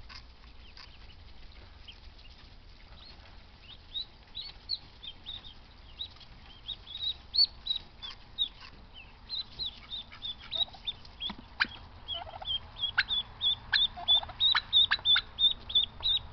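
Ducklings peeping in short high calls, sparse at first, then coming faster and louder until there are several a second near the end. A few lower calls are mixed in around the middle.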